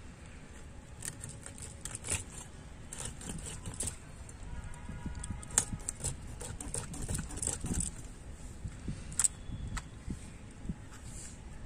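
A swamp eel being cut into pieces on a bonti blade: irregular small clicks, ticks and scrapes as the slippery fish is pressed and drawn against the fixed blade, with a couple of sharper ticks.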